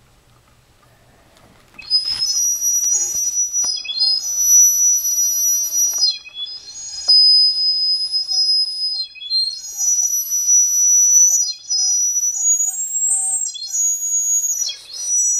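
A high-pitched whistle starts about two seconds in and is sounded in a series of long, held notes. Each note breaks off with a brief drop in pitch before the next begins. It is a whistle used to call a cat.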